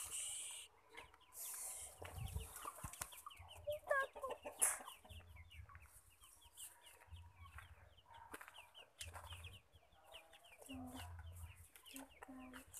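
Chickens clucking faintly, with a run of rapid high chirps through the middle.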